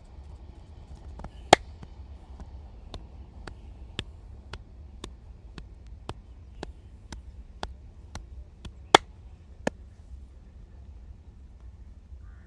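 A run of sharp, evenly spaced clicks from the masseur's hands during a head massage, about two a second, with a loud crack about a second and a half in and another near the end.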